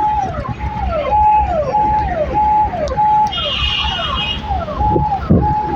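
Aftermarket electronic police-style siren fitted to a car, cycling a held high tone that drops away, a little under two cycles a second. Engine and road rumble run underneath.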